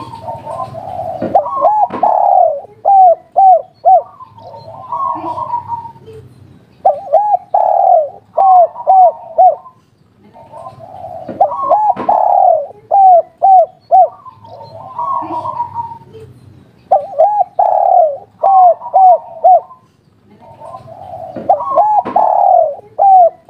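Spotted dove cooing in repeated phrases every few seconds. Each phrase is a rolling coo followed by a quick run of short notes, the 'kuk 3' call type.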